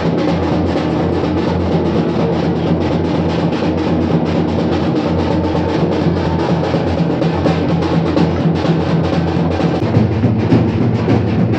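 Music driven by rapid, continuous drumming, with a steady low drone underneath.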